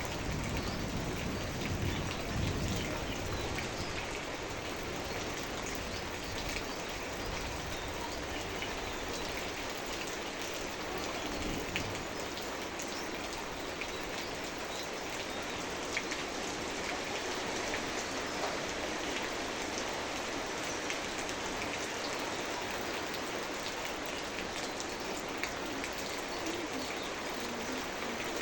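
Steady rain falling, with many single drops ticking on nearby surfaces. A low rumble dies away in the first few seconds.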